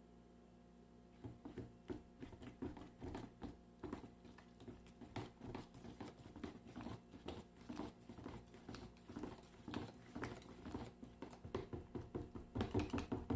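Plaster being hand-mixed in a coffee can: a quick, irregular patter of small taps and scrapes from the stirrer against the can, starting about a second in and getting louder near the end.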